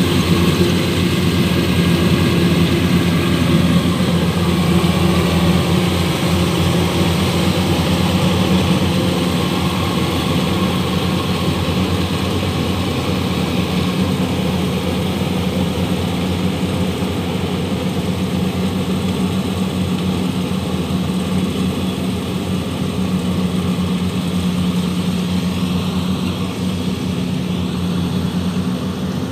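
Kubota DC-105X rice combine harvester's diesel engine running steadily while harvesting, a low, even hum that grows slightly fainter as the machine works away across the field.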